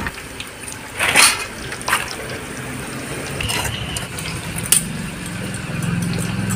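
Pointed gourd slices deep-frying in oil in an iron kadai, the oil sizzling steadily, while a wire skimmer scrapes and clinks against the pan and an aluminium bowl several times as the fried pieces are lifted out.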